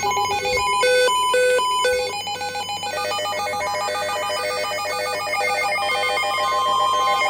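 Electronic alert tones opening a flash flood warning broadcast. For about the first three seconds the pitches alternate rapidly in a ringing warble, then they give way to steadier overlapping tones.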